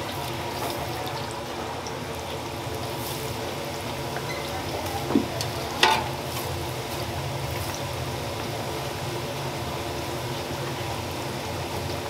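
Hot oil in a deep fryer sizzling and bubbling steadily as cornmeal-coated glutinous-rice dough rounds are laid in to fry. Two brief knocks about five and six seconds in.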